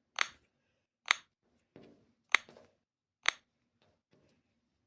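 Short, sharp clicks, four of them about a second apart, as jigsaw puzzle pieces are placed.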